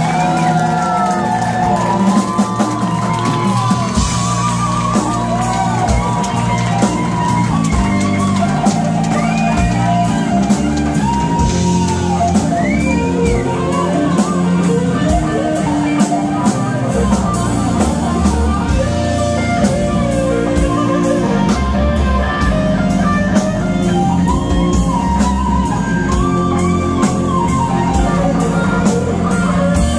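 Live rock band playing loud through the PA: electric guitars, bass and drum kit, with long lead notes that bend up and down.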